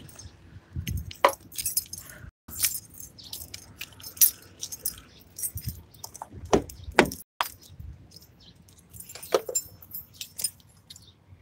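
Light metallic jingling in short irregular bursts, with a few sharp clicks and knocks among footsteps in sandals on asphalt.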